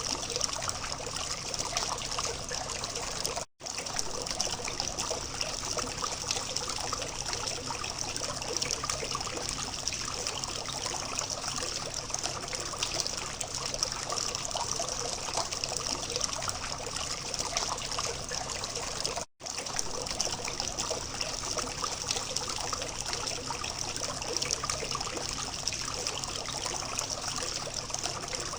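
Water from a small fountain trickling and splashing steadily. The sound cuts out for an instant twice, about three and a half seconds in and again about nineteen seconds in.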